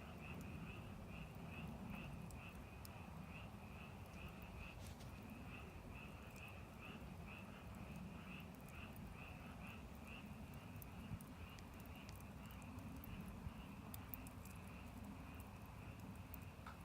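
Faint wood fire burning down to embers, with a low rumble and scattered sharp crackles and pops. Over it runs a steady series of short, high chirps at one pitch, a bit over two a second, from an animal calling outdoors.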